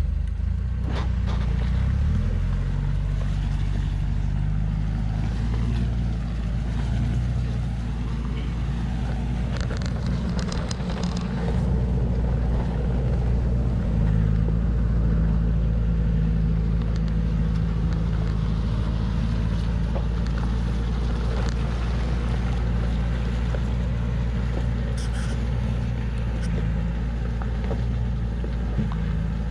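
A heavily loaded log truck's engine running under load as it crawls along a muddy dirt track: a steady low hum whose pitch steps up a couple of times, with a few brief clicks or knocks from the truck along the way.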